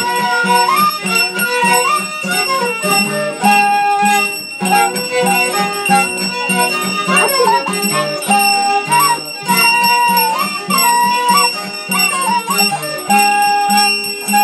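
Live Andean folk music: a flute and a violin play a winding melody over a strummed acoustic guitar keeping a steady beat.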